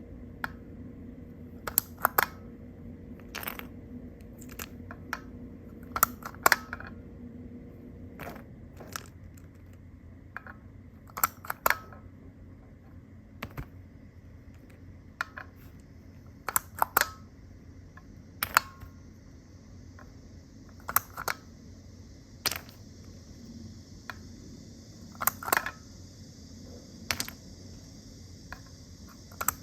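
Small plastic toy pieces clicking and tapping as they are handled and set down, irregular sharp clicks, some in quick pairs, about one every second or so.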